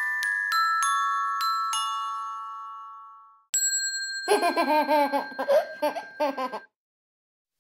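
Intro jingle: a quick run of about six struck glockenspiel-like notes, mostly stepping down in pitch, ringing out and fading over about three seconds. Then a baby giggling and babbling over a held chime tone for about three seconds, cut off abruptly.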